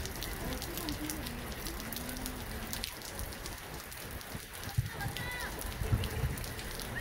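Steady rain pattering, dense with small drop ticks. Distant shouting voices rise over it, with a couple of dull thumps in the second half.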